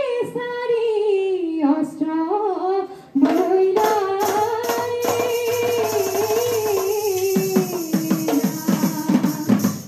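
Women's group singing of dihanam, an Assamese devotional chant, in long wavering held notes. After a short break about three seconds in, the singing resumes with steady hand-drum strokes and a bright cymbal shimmer.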